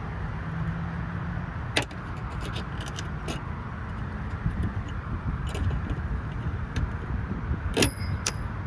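Sharp metallic clicks and snaps of a car's hood gas strut end fittings being unclipped by hand, four or so separate clicks with the loudest near the end, over a steady low rumble.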